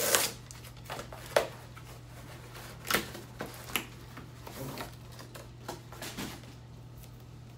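Cardboard shipping box being opened: a tear strip ripped open at the very start, then scattered taps, scrapes and rustles of the cardboard as it is handled, dying away about six seconds in.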